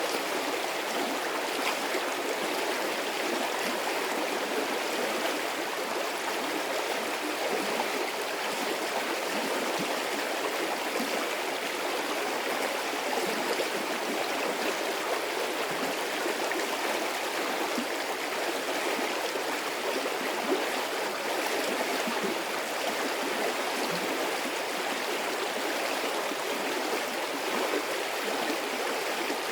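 A medium-sized stream running steadily, its water babbling and gurgling over rocks in an even rush of noise.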